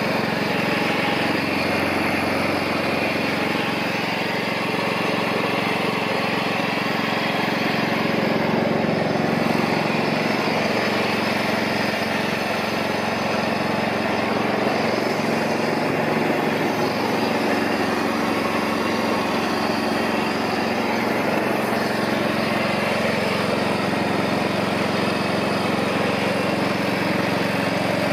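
Mountfield 1530H ride-on lawnmower engine running steadily, with an even, unchanging note.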